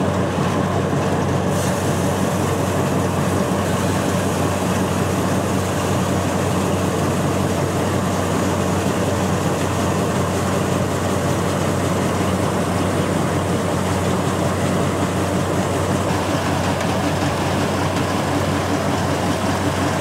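Feed grinder-mixer running steadily with only its mixer engaged, a constant mechanical drone, while crushed oyster shell is poured slowly into its hopper.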